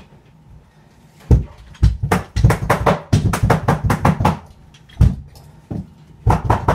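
Sharp clacking strikes of carpet-installing tools fastening carpet to stair steps, starting about a second in, coming in fast runs of several a second through the middle, with a few more near the end.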